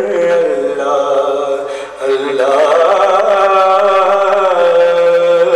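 Urdu devotional song (naat) sung without words in this stretch: the voice draws out long, wavering held notes after the line ending 'bam-o-dar', pausing briefly about two seconds in before holding another long note.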